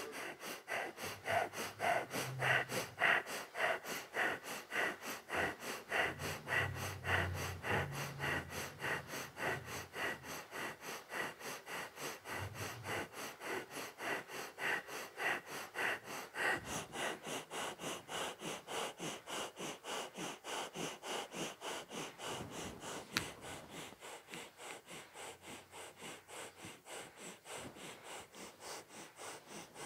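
Kundalini breath of fire: rapid, even, rhythmic breathing through the nose, with short exhales pumped from the navel, steady throughout and a little quieter over the last few seconds. There is a single click about two-thirds of the way through.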